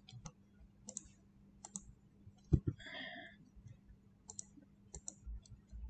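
Scattered sharp clicks of a computer mouse and keyboard, coming unevenly about a dozen times, over a faint steady hum.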